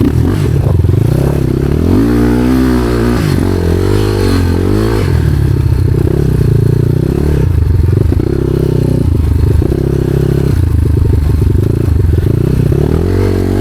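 Off-road motorcycle engine running under way, its revs rising and falling a few times about two to five seconds in, then holding fairly steady.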